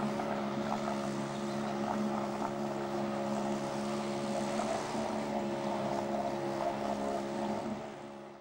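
Dinghy outboard motor running steadily at a constant speed, fading out near the end.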